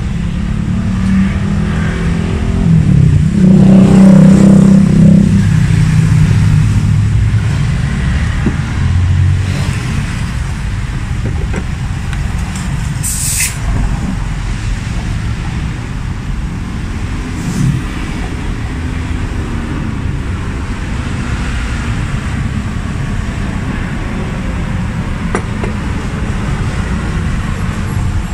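A motor vehicle's engine running nearby as a steady low rumble, swelling louder for a few seconds about three seconds in, with a brief hiss about halfway through.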